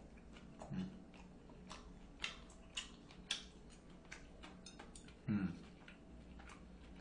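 Faint eating sounds: a man chewing, with scattered short clicks and smacks, and a brief low hum from his voice about five seconds in.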